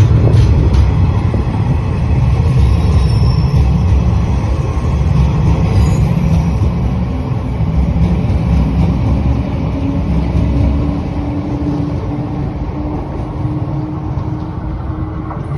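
Electric train rumbling loudly, with a faint whine that rises slowly in pitch over the second half.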